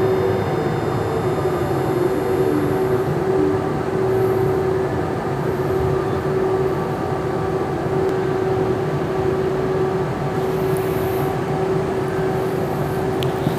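Siemens S200 light rail vehicle heard from on board while running at a steady speed: a constant whine from the traction drive over wheel and track rumble.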